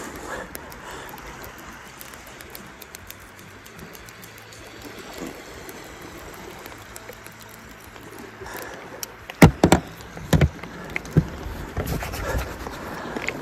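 Low steady wash of sea water against rocks, broken by a cluster of sharp knocks and bumps from hands and gear moving right at the microphone about nine and a half seconds in, with a few more just before the end.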